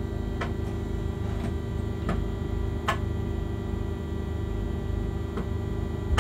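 Freight locomotive cab running: a steady low hum with a few steady tones, and light clicks or ticks at irregular moments, about six in all.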